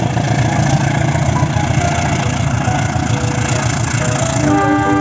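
Toy locomotive's electronic sound effect: a steady diesel-engine rumble, with a horn starting to sound about four and a half seconds in.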